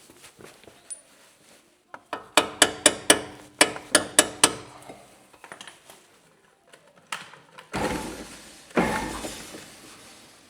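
Metal tools and parts clanking: a quick run of about nine sharp, ringing metallic strikes, roughly four a second, then two louder rattling crashes of metal near the end.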